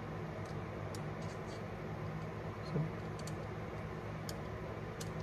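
Faint, scattered light clicks and ticks of a steel screwdriver shaft being worked against a Vessel magnetizer/demagnetizer collar to demagnetize it, with one slightly louder knock near the middle, over a steady low hum.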